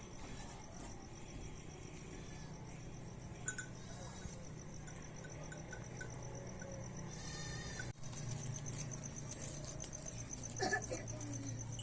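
Farm livestock bleating, with a bleat-like call near the end, over a steady low hum and a high, fast-pulsing trill.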